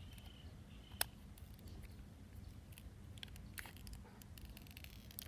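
Faint handling sounds of a new phone and its packaging: one sharp click about a second in, then scattered light crinkles and taps over a low steady hum.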